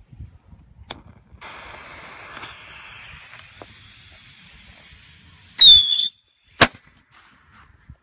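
Mighty Max whistling chaser firework lit: a click, then its fuse hisses for about four seconds, then it lets out a short, loud, wavering high whistle and ends in a sharp bang about a second later.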